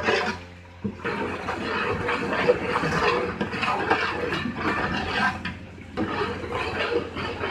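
Ground spice masala sizzling and bubbling in hot oil in a large aluminium pot as it is roasted (bhuna) for chole, stirred with a long ladle, over a steady low hum.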